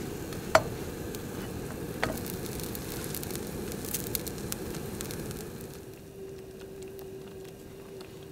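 A toasted sandwich frying in a nonstick pan on a camp stove: steady sizzling with scattered fine crackles over a low rush, and two sharp taps about half a second and two seconds in. Past the middle it goes softer, with a steady low hum.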